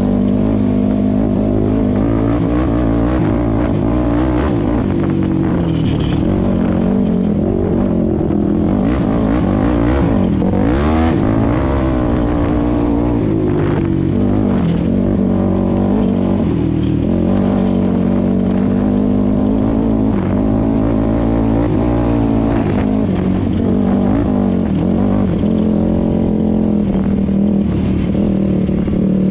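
Four-stroke off-road vehicle engine running under throttle on a dirt trail, recorded from the rider's helmet. The engine note wavers, dipping and picking back up about ten seconds in as the throttle is eased and reapplied.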